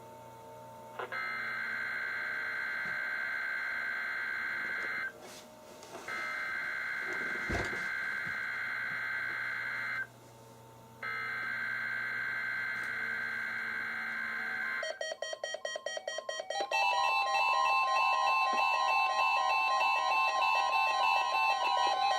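NOAA Weather Radio SAME header for a Required Weekly Test: three bursts of warbling data tones, each about four seconds long with a second's gap between them, and a single click partway through. About fifteen seconds in, several weather radio receivers start sounding their alert beeps together at different pitches and rhythms.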